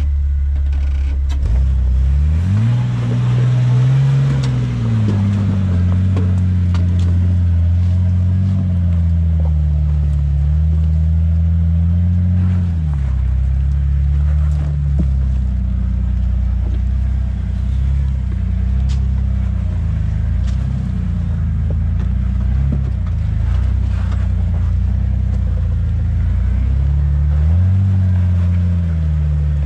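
Jeep Wrangler engine running, its revs climbing about two seconds in, then rising and falling gently with the throttle as it works along an off-road trail.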